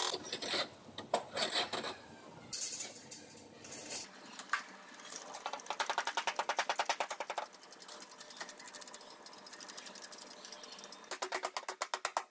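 Rapid, even mechanical clicking at about ten clicks a second, in two runs, with a few scattered knocks and a short hiss before it.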